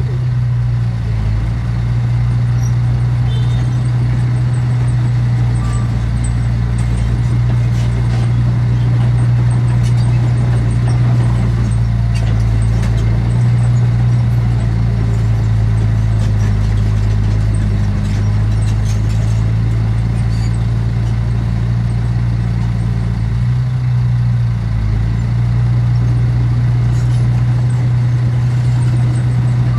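Heavy diesel engine of earthmoving machinery running steadily as a low drone, which dips briefly in pitch about a second in and again late on.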